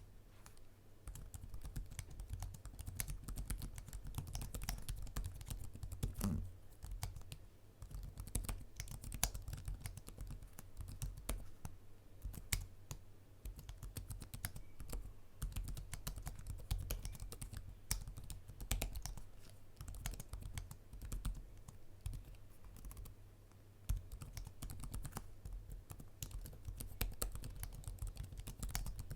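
Typing on the reMarkable 2 Type Folio keyboard: a continuous run of fast, irregular key clicks, with a brief pause about three-quarters of the way through.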